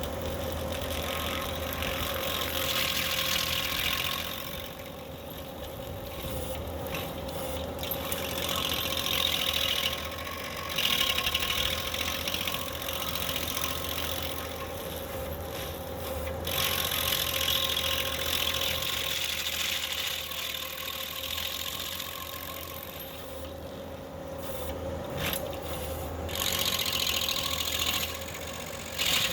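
Skid steer engine running steadily while a hydraulic stump grinder wheel chews into wood in repeated spells of grinding, each lasting a few seconds.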